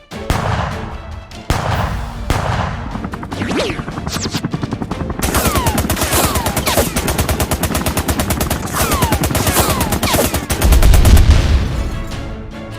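Gunfire sound effects: a few single shots, then rapid machine-gun fire with falling whistles, ending in a loud low boom near the end, over background music.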